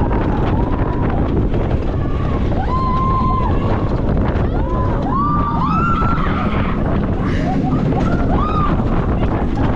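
Wind rushing over the microphone and the steady rumble of a steel roller-coaster train running along its track at speed. Over this, riders let out several short, high yells, most of them about halfway through.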